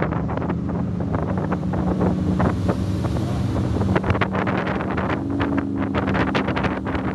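Fountain Lightning powerboat's engines running under way, their pitch stepping up about five seconds in, with wind buffeting the microphone.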